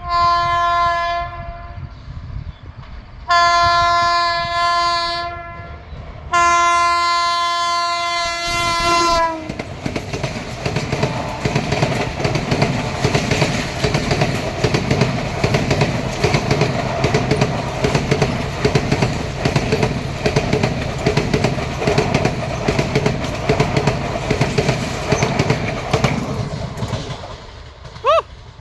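WAP-5 electric locomotive's horn sounding three blasts at full speed, the last the longest, with its pitch sagging as it ends. Then the express coaches rush past with a fast, dense clatter of wheels over rail joints, which fades near the end; a short rising chirp follows.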